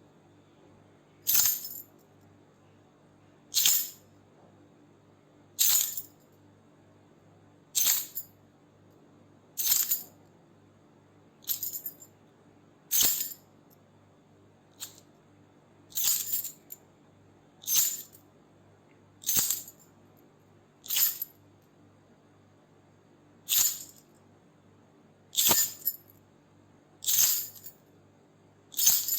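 A bunch of metal keys shaken in short jingling bursts, about one every two seconds.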